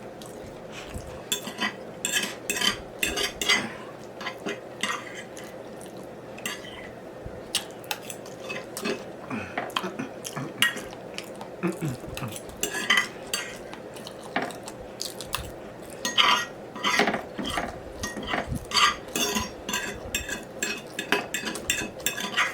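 Cutlery clinking and scraping against a plate and bowl during eating, a rapid, irregular run of short clicks and taps.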